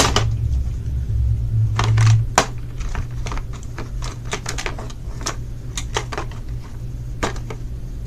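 Plastic blister pack on a cardboard backing card being handled, giving irregular clicks and crackles, the sharpest right at the start, over a steady low hum.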